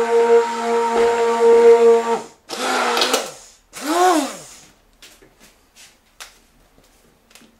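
Hand-held stick blender puréeing potato soup in a stainless steel pot, its motor whining steadily, then switched off about two seconds in. Two short pulses follow, each spinning up and winding down, then a few faint clicks.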